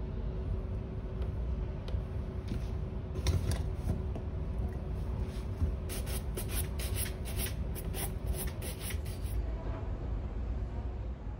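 A wooden-backed shoe brush swept briskly back and forth over a polished leather shoe, buffing it: a few lighter strokes, then from just past the middle a run of quick swishes at about three a second that stops shortly before the end. Under it runs a steady low hum.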